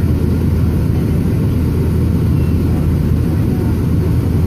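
Steady low rumble of a jet airliner's engines and rushing air, heard inside the passenger cabin during the climb after takeoff.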